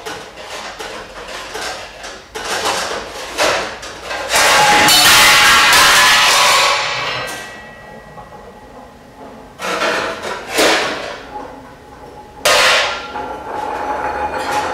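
Metal bowls, plates and trays clanking and scraping as they are stacked and handled, with a long loud metal clatter a few seconds in that rings on as it fades, and further sharp clangs later.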